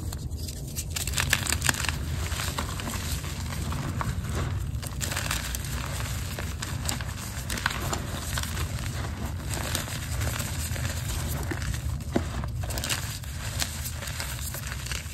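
Hands crushing and crumbling chunks of green reformed gym chalk into powder: a continuous, dense crunching and crackling of breaking chalk, softer for about the first second.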